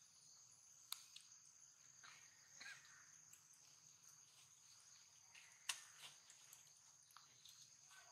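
Faint, steady high-pitched drone of insects, with two sharp clicks, one about a second in and a louder one a little before six seconds, and a few faint short chirps.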